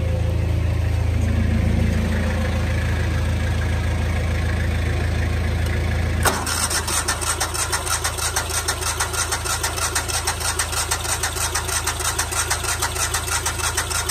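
Engines running: a steady low engine hum, then about six seconds in a louder small engine with a fast, even pulse cuts in abruptly. This is plausibly the portable generator running once it has been refuelled.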